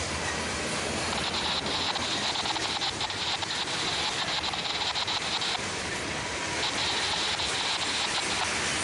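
Train cars rolling past: a steady run of wheel-on-rail noise with rapid fine clicking and a higher hiss that fades for about a second midway, then returns.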